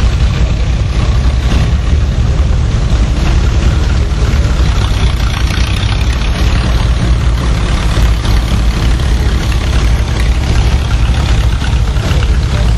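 Threshing machinery running steadily, belt-driven by a steam traction engine: a continuous low rumble with a hiss over it.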